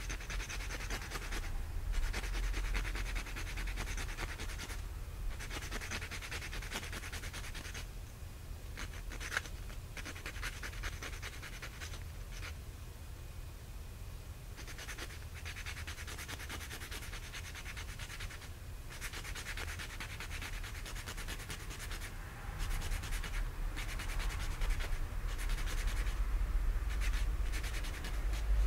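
A thin sapphire nail file rasping on a dog's claws, in runs of quick back-and-forth strokes with short pauses between them. It gets louder toward the end.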